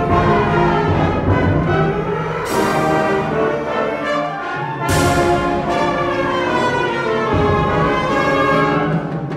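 Symphonic wind band playing, brass to the fore, in sustained full chords. Sharp crashing accents come about two and a half and five seconds in.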